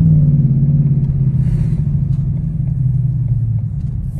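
Ford Mustang GT's V8 running at low revs, a deep steady rumble whose pitch slides down a little as the level eases off.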